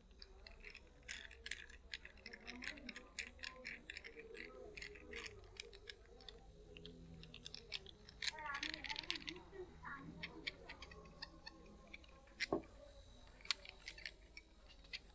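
Hands giving a head massage: an irregular run of light clicks and taps, thickest about nine seconds in, with one sharper knock about twelve and a half seconds in.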